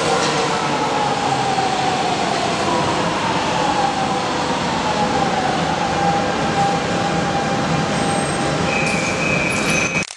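Lisbon Metro train pulling into an underground station and braking to a stop, its motors whining in a slowly falling pitch over the steady noise of the wheels. Near the end a short high beep sounds, and then the sound cuts off abruptly as the camera stops recording to take a still photo.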